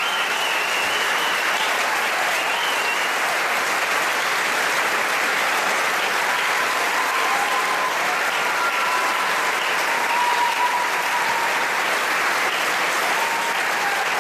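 Audience applauding steadily, a dense even clapping with a few faint voices or whistles above it.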